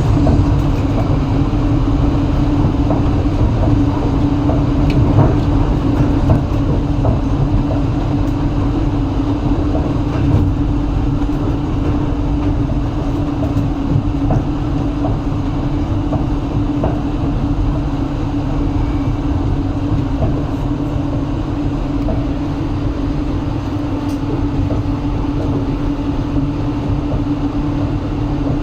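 Passenger train running steadily, heard from inside the carriage: a constant low rumble of the wheels on the rails under a steady hum, with faint scattered clacks.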